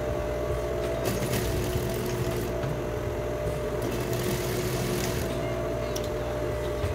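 Electric sewing machine stitching a seam, its motor running with a steady hum, with bursts of a higher whirr partway through and again about four seconds in.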